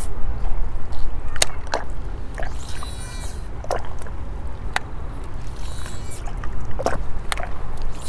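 Wind buffeting the microphone in a steady low rumble, with about six sharp clicks scattered through it and a faint lapping of water.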